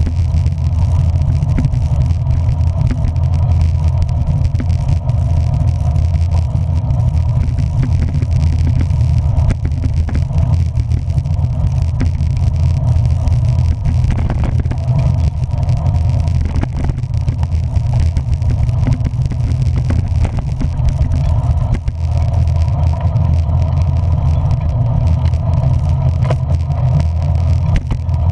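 A vehicle riding in the rain: a steady, loud low rumble of motor and wheels with an even hiss on top, unchanging throughout.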